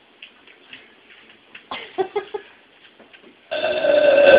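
A loud, long burp beginning about three and a half seconds in and held for about a second, after a few short vocal sounds.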